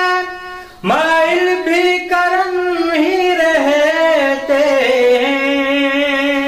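A man singing an Urdu naat solo into a microphone, drawing out long, wavering melismatic notes. His voice breaks off for a breath just under a second in, slides up into the next phrase and settles onto a lower held note near the end.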